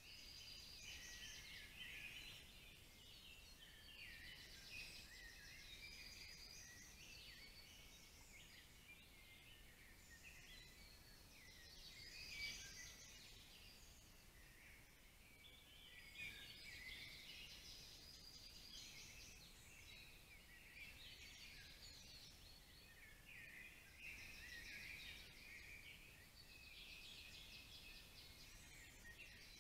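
Faint songbirds singing in the forest, many overlapping chirps and trills.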